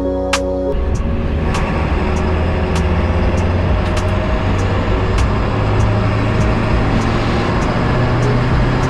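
Under a second in, music gives way to steady engine and road noise inside the cab of a moving delivery step van, with a low hum and a light tick repeating a little under twice a second.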